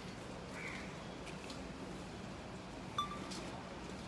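Quiet outdoor background with faint bird calls, and one short sharp click with a brief ringing tone about three seconds in.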